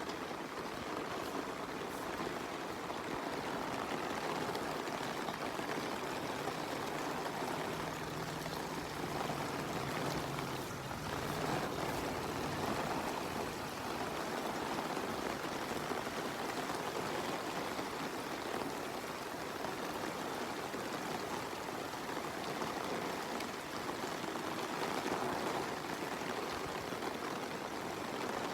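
Steady rain falling, mixed with the rushing of running water.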